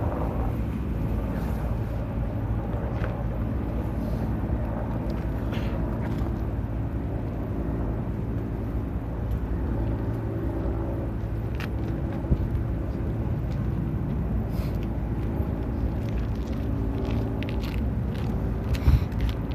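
Steady low outdoor rumble of distant road traffic, with a few light knocks, one sharper about twelve seconds in and another near the end.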